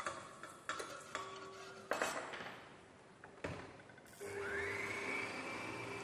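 A few clinks and knocks of a metal mixing bowl and utensils. About four seconds in, a stand mixer's motor starts, its whine rising then holding steady as it beats softened butter with sugar.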